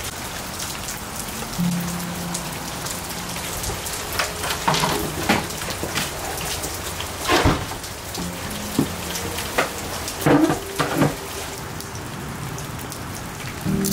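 Steady rain falling, a continuous hiss with occasional sharper knocks of heavier drops.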